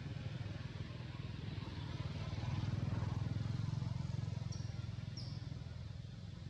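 An engine running steadily at low pitch with a fine, even pulse, swelling a little in the middle. Two brief high chirps come near the end.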